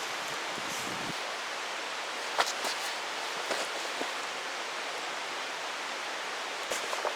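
Steady rushing of a mountain stream, with a few sharp clicks over it, the loudest about two and a half seconds in and a few more near the end.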